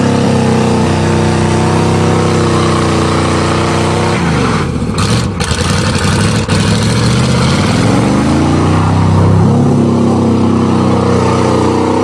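A 1988 Chevrolet pickup's 305 small-block V8 held at high revs as the truck spins its rear tyres through mud. About four seconds in the revs fall away, then climb back up over the next few seconds and hold high again.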